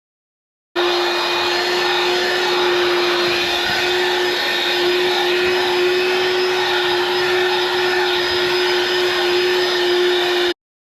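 20V cordless handheld vacuum running steadily, a rushing suction noise over a constant motor hum. It cuts in abruptly about a second in and stops abruptly near the end.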